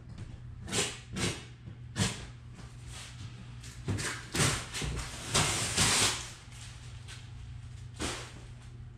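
Cardboard shipping box and packing material being handled while unpacking a treadmill: irregular short scrapes and rustles of cardboard, the longest and loudest one about five to six seconds in.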